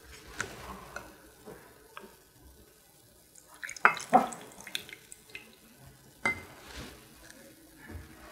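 A spoon clinking and scraping in a bowl while rice porridge is eaten, with a few sharp clinks about four seconds in and another just past six seconds.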